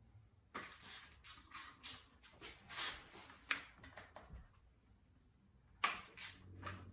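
Faint workshop handling sounds while unbolting a dirt bike's front fork guard: a run of short scrapes and clicks of a hand tool on its 8 mm bolts and the plastic guard, pausing for a second or so before a few more near the end.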